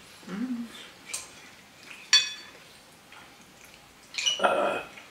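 Cutlery clinking against dishes, with one sharp ringing clink about two seconds in and a louder clatter near the end.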